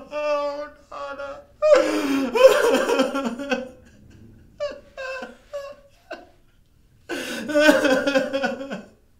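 A man crying without words: long drawn-out wails about two seconds in and again near the end, with short broken sobs in between, acted rather than real.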